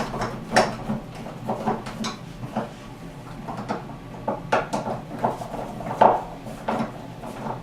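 Door handle hardware and small tools being handled: irregular metal and wood clicks, taps and clatters, the loudest knock about six seconds in.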